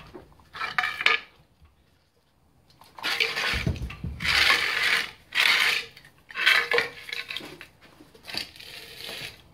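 Metal hand tools clanking and scraping against a bare engine being worked loose, in a run of short irregular bursts, with a heavier knock a little over three seconds in.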